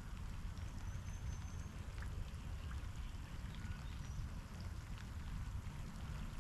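Steady rain falling, with a low rumble underneath and a few faint ticks.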